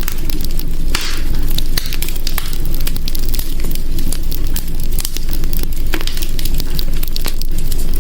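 Wood fire burning in a hearth: a steady low rumble of flame with irregular sharp crackles and pops, and a brief hiss about a second in.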